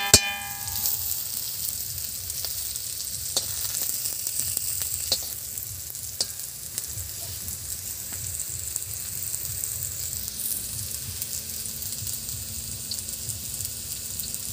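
Snake gourd rings sizzling steadily as they fry in oil in a black wok. Right at the start a metal spatula knocks against the pan twice with a short metallic ring, and a few light clicks follow.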